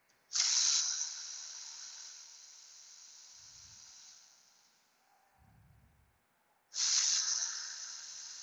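Air ratchet hissing in two long bursts, each loudest at the start and tapering off over a few seconds, as it backs out the E8 Torx bolts. A few faint knocks fall in between.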